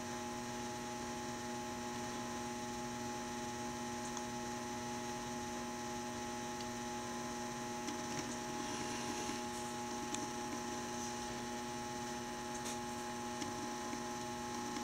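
Steady electrical hum made of several fixed tones that do not change, with a few faint ticks.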